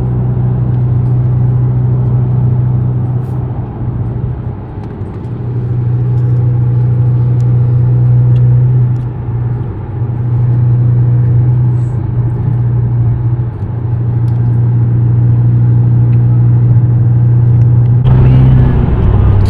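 Car driving steadily at road speed: a constant low drone of engine and road noise, dipping briefly a few times.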